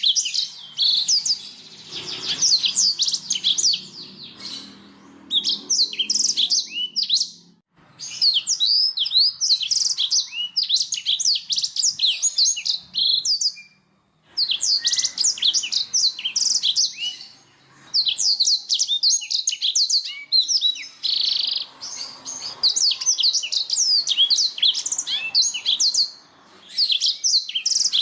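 Domestic canary singing: long, rapid phrases of quick sweeping chirps and trills, pausing briefly twice.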